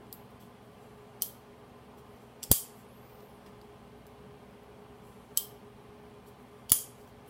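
Spyderco Para 3 folding knife being opened and closed: four sharp, separate clicks as the blade snaps against its compression lock and detent, the one about two and a half seconds in the loudest.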